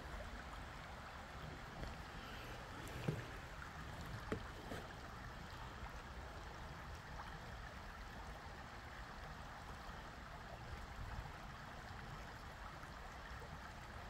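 Shallow woodland creek flowing over rocks: a faint, steady running-water sound. A couple of light knocks come about three and four and a half seconds in.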